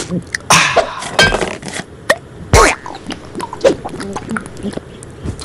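Repeated coughing and spluttering in several short, loud bursts.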